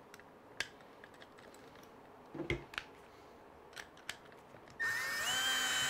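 A few light clicks and a knock as small parts are handled, then, near the end, a cordless drill/driver starts up and runs steadily, driving a screw into the RC truck's chassis brace. Its whine rises briefly in pitch as the motor spins up, then holds steady.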